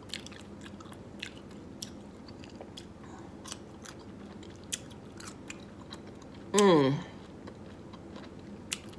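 A person chewing a bite of Kool-Aid-soaked dill pickle with the mouth closed: scattered small wet clicks and crunches. About two-thirds of the way through comes a short hummed "mm" that dips and rises in pitch, the loudest sound.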